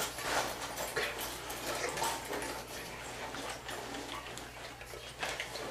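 Irregular light clicks and rustles of objects and the camera being handled, over a steady low hum.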